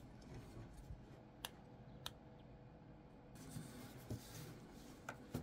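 Faint handling sounds from a small camera module and its flat ribbon cable being moved about: light rustling, with a few sharp little clicks, two about a second and a half to two seconds in and two more near the end.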